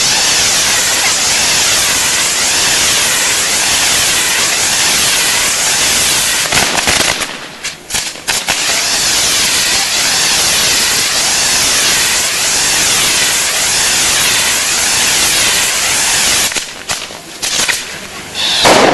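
Heart-shaped lancework fireworks set piece burning with a loud, steady, dense hiss. The hiss drops off briefly twice, about seven and about seventeen seconds in.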